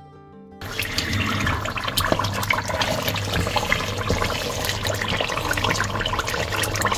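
Chicken karahi sizzling and bubbling in its oil and tomato masala in a steel pot on a gas flame, with a metal spatula stirring and scraping through it. The sizzle comes in suddenly about half a second in and stays steady.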